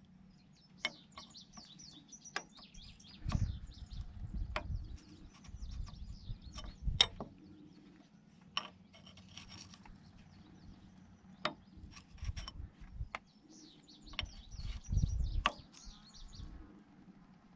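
Wrench clicking and scraping on the metal hose fittings of a hydraulic cylinder as they are tightened, with scattered sharp clicks and low handling knocks. Small birds chirp faintly at times.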